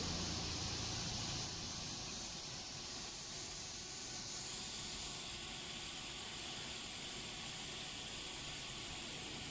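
CNC vertical machining centre running: a steady hiss with a thin, steady high whine, and a low hum that fades about a second and a half in.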